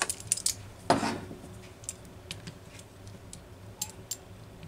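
Light metallic clicks and clinks of a chainsaw clutch drum and shoes being handled, with a louder knock about a second in, as the freshly epoxied clutch shoe is set into the drum to be clamped.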